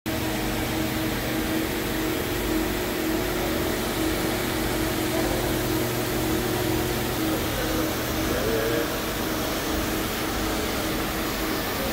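CNC Swiss-type lathe running, a steady mechanical hum and whir with a steady droning tone. A lower hum in it stops about nine seconds in.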